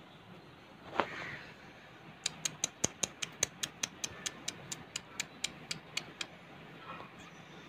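Budgerigars pecking at a concrete floor, their beaks tapping in sharp little clicks: one louder tap about a second in, then a quick run of about five taps a second.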